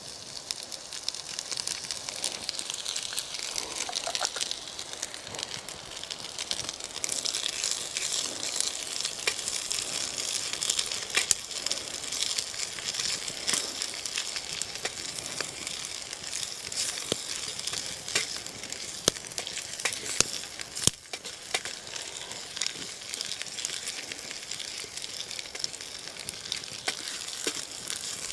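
Stir-fry sizzling in a stainless steel pan over a small wood-burning stove, with many short sharp clicks and scrapes as a wooden spatula stirs it. The sizzle grows louder about seven seconds in.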